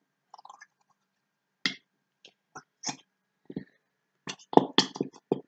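A squeezed plastic bottle of PVA glue sputtering as air is forced out with the glue: short irregular bursts, several in quick succession near the end.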